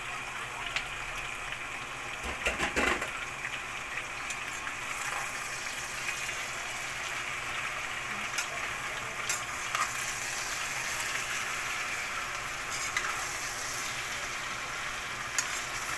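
Bakasi eels with chilies, garlic and onion sizzling as they fry in a pan, stirred with a spatula that clicks and scrapes against the pan, with a louder clatter about two and a half seconds in.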